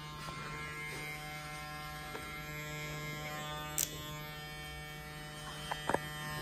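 Cordless hair clipper running with a steady buzz as it cuts hair, with a few brief clicks about four seconds in and again near the end.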